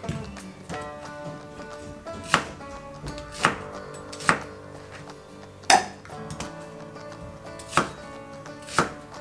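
Kitchen knife cutting a red onion on a cutting board: about six sharp knocks of the blade hitting the board, unevenly spaced, over steady background music.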